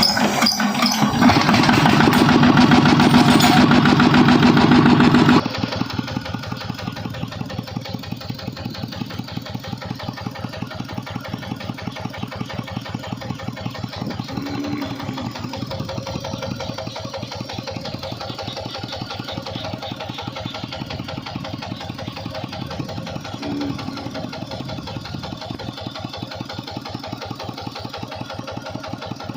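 Small engine running with a fast, even pulsing beat, louder for about the first five seconds and then dropping suddenly to a quieter, steady idle.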